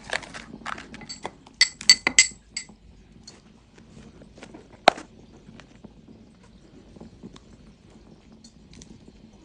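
A quick run of light, ringing clinks of hard dishes or jars knocking together, then one sharp knock about halfway through, followed by faint scattered ticks of items being handled.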